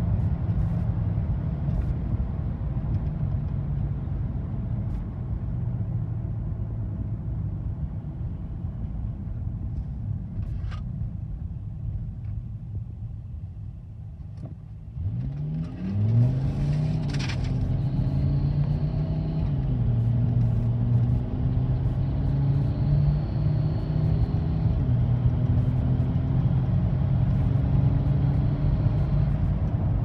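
Inside the cabin of a Volkswagen Touareg V10 TDI: the diesel engine and road noise drone as it coasts down. About halfway through, the engine is put under hard acceleration from low speed; its note rises sharply and steps down at each upshift as it pulls through the gears. This is a test pull for a stutter above about 2000 rpm that the owner says it still has.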